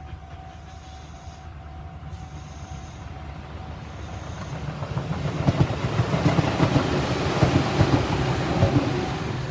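A Tobu 800-series electric commuter train running past close by. Its wheels click over the rail joints, and the sound grows louder from about four seconds in as the cars draw alongside.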